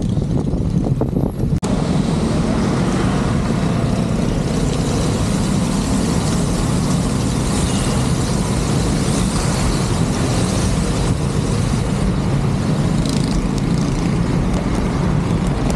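Steady rushing noise of riding a bicycle through heavy rain in city traffic: rain and wind on the microphone and tyres on the wet road, with motor traffic mixed in. About a second and a half in, the noise turns suddenly louder and brighter.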